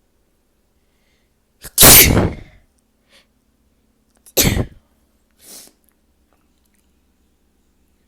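A person sneezing loudly twice, deliberately provoked sneezes, each with a quick intake just before. The first, about two seconds in, is the louder and longer; the second, about two and a half seconds later, is shorter, and a faint brief rush of breath follows it a second later.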